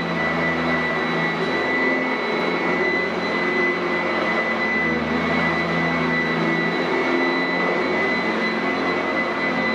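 Sanitaire SC899F commercial upright vacuum running steadily over carpet, with a constant high whine and a lower motor hum that wavers slightly in pitch.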